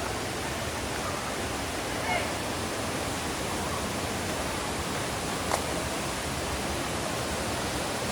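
Steady rush of flowing water, an even hiss with no rhythm, with a single sharp click about two thirds of the way through.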